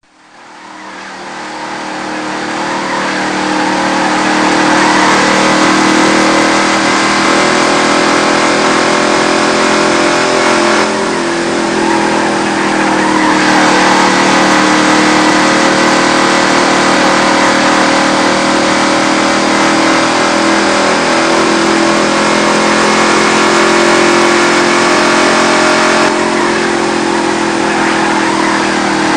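Sports car engine running steadily, its pitch drifting slowly up and down, fading in over the first few seconds.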